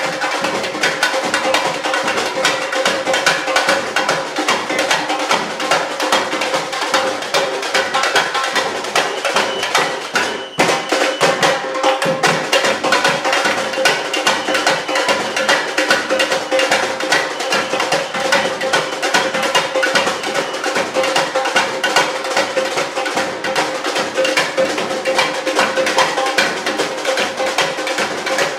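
Brazilian samba drum group playing a fast, steady rhythm on drums, with sharp, woody strikes over it. There is a brief dip about ten seconds in.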